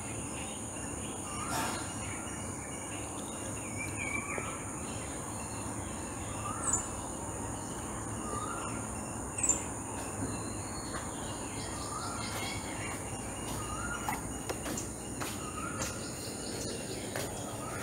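Faint outdoor background: a steady high-pitched insect trill with short rising bird chirps every couple of seconds.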